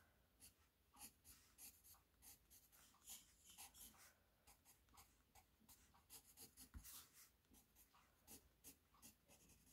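Faint scratching of a watercolor pencil on paper in many short strokes.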